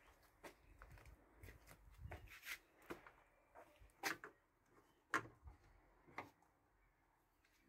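Faint, scattered clicks and taps of small objects being handled, with two sharper clicks about four and five seconds in.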